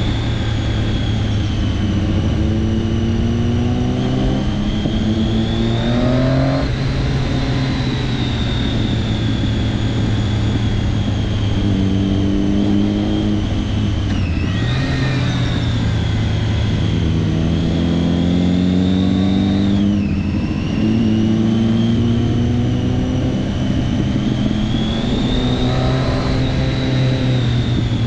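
Triumph Daytona 675 motorcycle's three-cylinder engine running hard, its pitch climbing under acceleration and falling back at gear changes several times.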